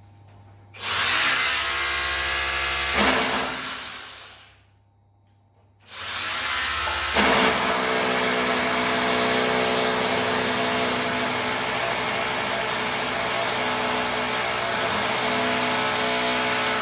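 Cordless drill drilling into a wall: a first run of about three seconds, a pause of about two seconds, then a longer steady run of about ten seconds that stops near the end.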